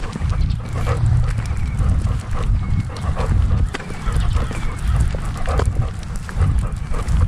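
Labrador retriever panting as it trots, heard close up from a camera harness on its back, with paws crunching on a gravel path and a low rumble on the microphone.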